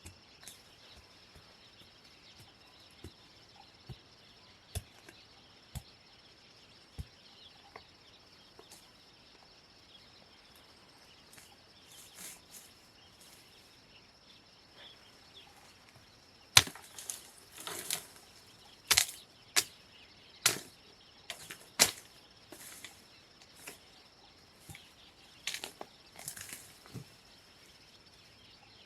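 Sharp chopping strikes on wood at irregular intervals: a few light knocks at first, then a run of louder blows from a little past halfway, with a few more near the end. A steady high-pitched insect drone runs underneath.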